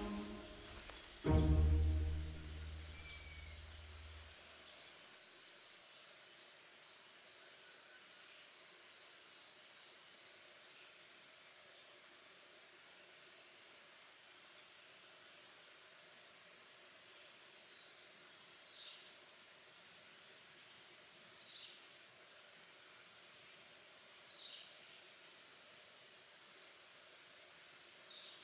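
Steady, high-pitched chorus of insects trilling with a fast pulse, unbroken throughout. About a second in there is a low thump followed by a deep tone that fades away within a few seconds.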